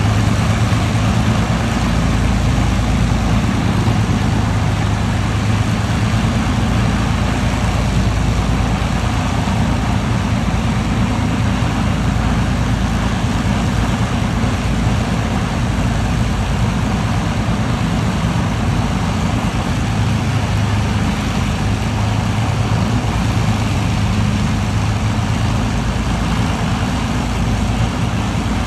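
A single Merlin V12 piston engine of an Avro Lancaster running steadily on a ground run, a deep, even drone with the propeller turning.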